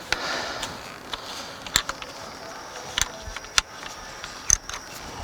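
Plastic interior car trim being pulled and worked loose: a few sharp, separate clicks and knocks over a low hiss.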